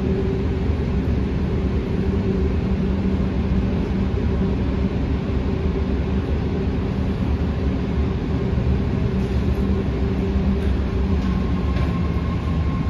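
A train at a platform: a steady low rumble with a constant hum, holding level throughout.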